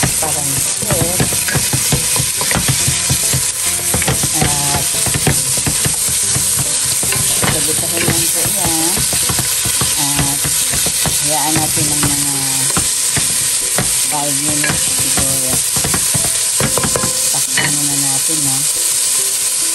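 Shredded carrots frying with onions and garlic in a pot, sizzling steadily, while a wooden spatula stirs and scrapes them against the pan again and again.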